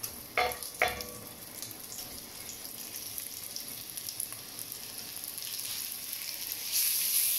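Flour-coated cubes of braising steak sizzling as they go into hot olive oil in a Dutch oven, with two sharp knocks about half a second apart near the start. The sizzling grows louder near the end as the meat is stirred in the oil.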